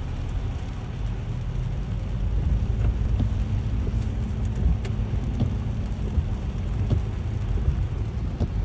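Car cabin noise in heavy rain: a steady low rumble from the car with rain noise on the body and windscreen, and a few light taps scattered through.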